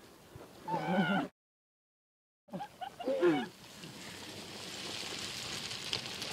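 High, wordless yelps from a voice, broken by about a second of dead silence. A second, falling yelp follows, then a hiss that slowly builds toward the end.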